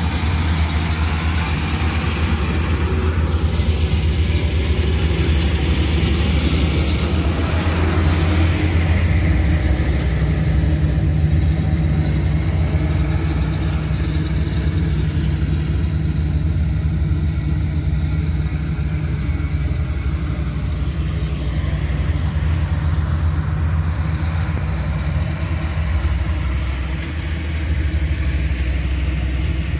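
Combine harvester running steadily at work: a loud, even engine drone.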